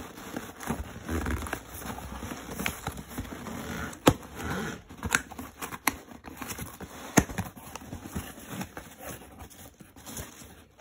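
A cardboard box being handled by hand, with packing peanuts rustling and crackling inside it and a few sharp taps and knocks of the cardboard.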